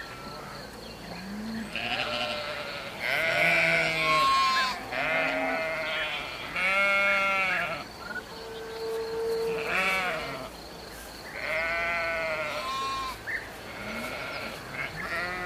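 Bleating livestock: a string of about ten separate bleats, each under a second and a half, varying in pitch, with short gaps between them.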